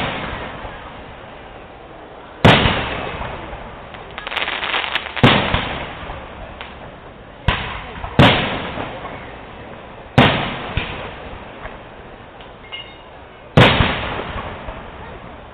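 Aerial firework shells bursting one after another: about six sharp bangs a second or two to a few seconds apart, each trailing off in a rolling echo, with a short run of crackling pops between two of them.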